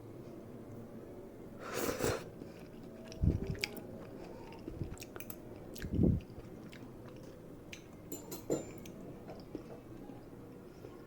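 A person eating noodles close to the microphone: chewing and wet mouth sounds with scattered small clicks. There is a longer noise about two seconds in and two soft thuds, about three and six seconds in.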